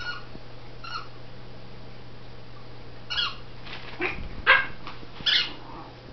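Small terrier dogs yipping and barking in play: two short high-pitched yips, then a quick run of yips and barks a few seconds in, the loudest about four and a half seconds in.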